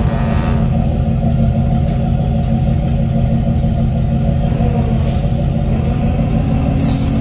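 A 70-foot yacht's engines running steadily at low speed while it eases into its slip: a low, even rumble with a steady hum. A brief high chirping squeak comes near the end.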